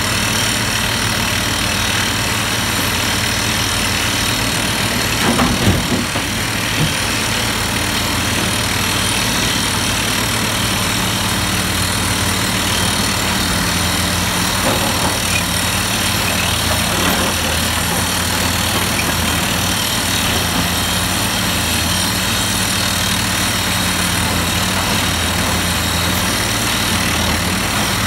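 Komatsu PC350 excavator's turbocharged six-cylinder diesel (SAA6D114E-3) running steadily under work, with a short clatter of rock hitting the dump truck's steel bed about five seconds in and a couple of smaller knocks later.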